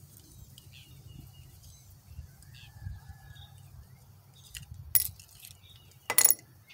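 Carburetor from a Kohler CV15S engine being taken apart by hand: light clicks and clinks of its metal and plastic parts, with two sharper clicks about five and six seconds in, the second the loudest.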